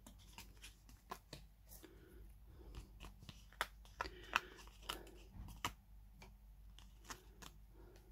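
Cardstock and paper being handled: a cardstock card layer with foam adhesive dimensionals on it is turned over and fingered. Faint scattered clicks and light rustles, with a few sharper clicks about four and five and a half seconds in.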